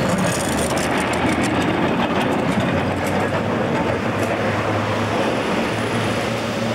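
Vintage electric tram rolling away on its rails, with a steady rumble of wheels and running gear. A run of sharp clicks from the wheels and track comes about one to two seconds in, and a low steady hum sets in about halfway through.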